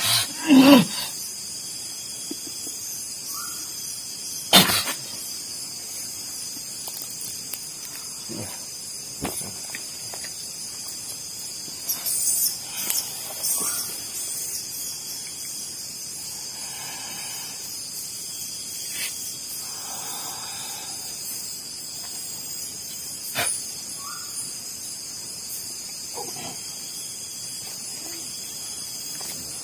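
Crickets chirring steadily at night, with a few sharp knocks, the loudest near the start and about four and a half seconds in, and a couple of faint soft murmurs in the middle.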